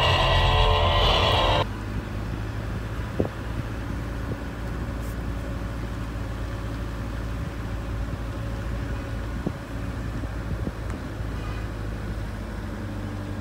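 Electric guitar music that cuts off abruptly about a second and a half in, followed by the steady low rumble of a car driving, heard from inside the cabin.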